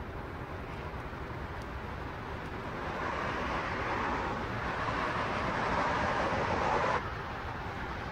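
A passing tanker ship's engine and hull-water noise: a steady low rumble with a rushing sound that swells from about three seconds in, then drops off abruptly about seven seconds in.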